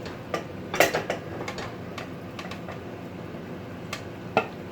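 A cooking utensil knocking and scraping against a pot while rice noodles are stir-fried: irregular clicks and taps, with the loudest cluster about a second in and another sharp knock near the end.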